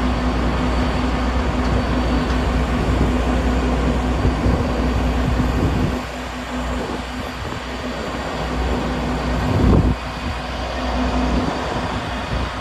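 Claas Lexion 750 combine harvester's diesel engine running with a steady hum and a constant tone. About halfway the sound drops a little in level, then it swells briefly louder near the end.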